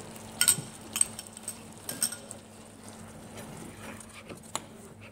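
Metal spoon clinking against a plate and a frying pan while sauce is spooned and the pan is stirred: a few sharp, separate clinks over a faint steady low hum.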